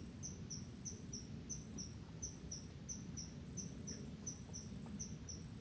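Insects chirping: short, high, falling chirps in pairs, about three pairs every two seconds, alongside a higher, thin trill that comes in half-second stretches, over a low, steady rumble.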